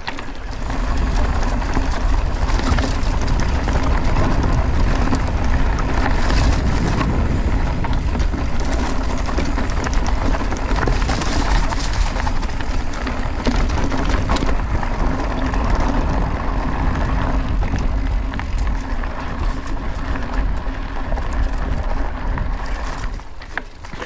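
Cannondale Scalpel Carbon 2 mountain bike ridden fast down a dirt trail: its tyres rolling over gravel and the bike rattling, under steady wind rumble on the action camera's microphone. The noise eases a little near the end.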